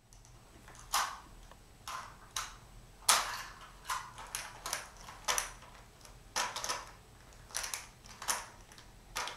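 Irregular sharp clicks and clatters, about a dozen in all, from small hard objects being handled, over a faint low hum.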